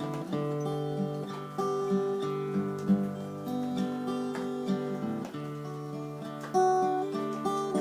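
Acoustic guitar playing a song's instrumental opening, chords picked out note by note in a steady rhythm.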